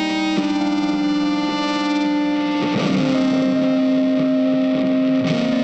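Background music led by a distorted electric guitar holding sustained chords, changing chord about a third of a second in and again near the middle.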